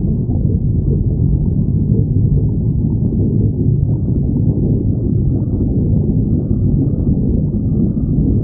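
A person's stomach growling, a loud, continuous low rumble with no breaks.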